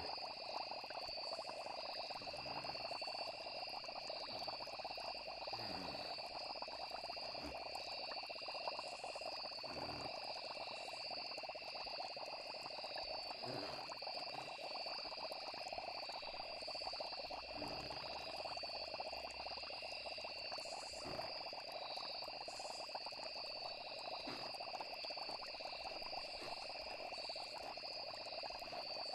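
Night nature ambience: a steady chorus of frogs and crickets trilling without a break, with a few short low pops scattered through it.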